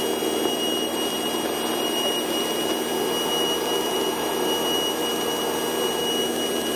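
Steady drone of a light airplane's engine and propeller in level flight, heard inside the cabin, with a thin high whine running under it.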